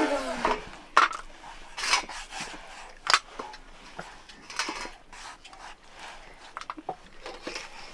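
Fingers mixing rice on a steel plate, scraping and tapping against the metal in a series of short, scattered clicks and scrapes.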